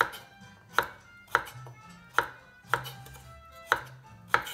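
Kitchen knife cutting a carrot on a wooden cutting board with a rolling cut, each cut ending in a sharp knock of the blade on the wood, about two knocks a second.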